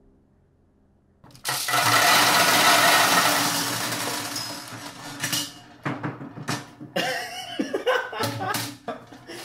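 A sudden loud, harsh noise about a second in, fading over the next few seconds, followed by sharp clicks and then music with a beat.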